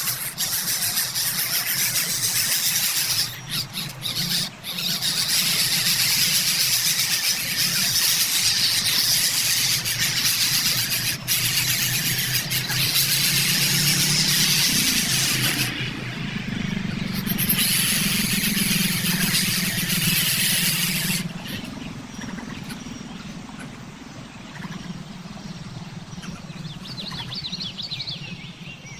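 Shrill, dense squealing calls of nestling birds in the nest, loud and continuous, then dropping off sharply about two-thirds of the way through to a quieter outdoor background with faint chirps.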